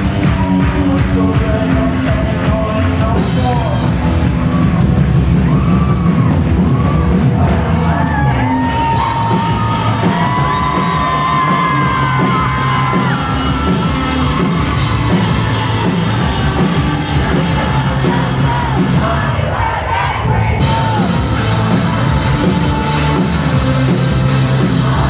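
A rock band playing live through a large venue's PA, with a lead voice singing and holding long notes partway through, and the crowd yelling over it.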